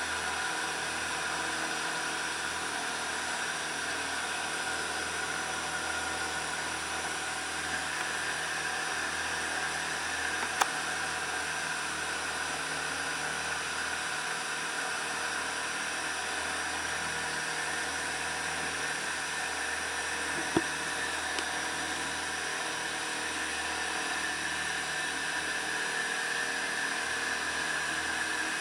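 Engine of a motorized outrigger boat running steadily under way, a constant drone with a high whine in it. Two short sharp clicks, about ten and twenty seconds in.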